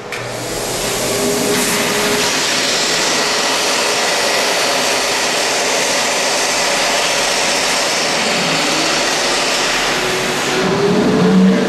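Shop-vac blower running steadily, forcing air through the cooling system so that it rushes out of the open radiator drain valve into the drain pan.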